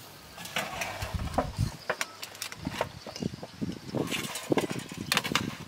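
Metal utensils and a metal tray scraping and clinking against the wire grill grate as a whole roast pig is lifted off it, with irregular clicks and short scrapes throughout.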